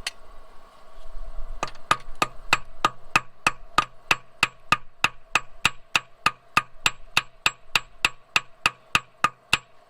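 Hammer tapping steadily on metal, about three or four sharp blows a second with a light ring, starting a couple of seconds in.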